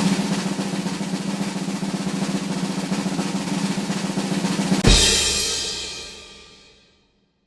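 Snare drum roll for about five seconds, ending in one loud crash hit with a low thump that rings on and fades away over about two seconds.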